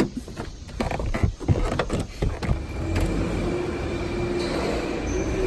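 A few sharp knocks and clunks, then a truck engine running steadily from about three seconds in.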